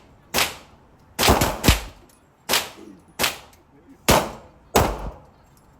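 Handgun shots fired in an irregular series, about eight in five seconds, each a sharp crack with a short ringing decay in the range.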